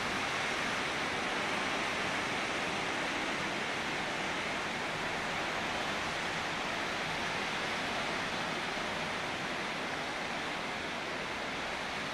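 Rough Atlantic surf breaking: a steady, dense wash of water noise with no single crash standing out.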